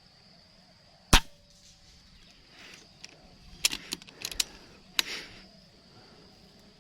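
A single PCP air rifle shot, a sharp crack about a second in, followed a few seconds later by a quick run of clicks and one more click. A steady high insect drone runs underneath.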